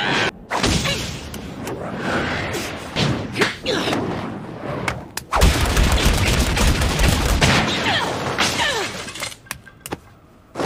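Cartoon fight sound effects: a quick run of punch and block impacts with whooshes of swinging fists, thickening in the middle into a dense, heavy barrage of hits.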